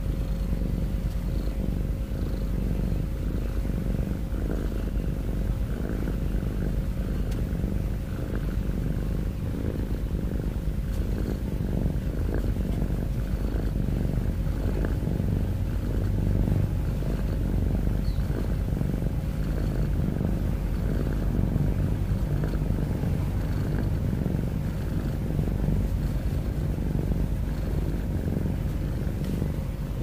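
Domestic cat purring close up: a continuous low, rough rumble.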